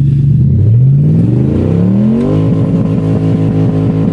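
1990 Lexus LS400's 4.0-litre V8 running with open exhaust manifolds, revving up: the pitch climbs steadily for about a second and a half, then holds at high revs with a rapid, regular stutter.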